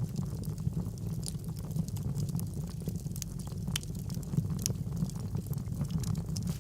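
Wood fire burning in a fireplace: a steady low sound of the flames with frequent small, sharp crackles and pops at irregular intervals.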